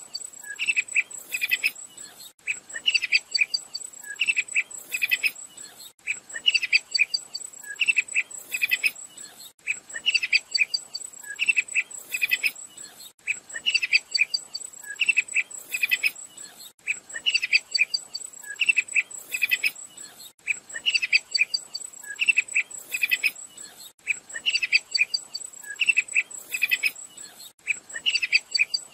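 Sharp-tailed tyrant (Culicivora caudacuta) singing: a short phrase of quick, high notes repeated about every two seconds, over a steady high-pitched insect trill.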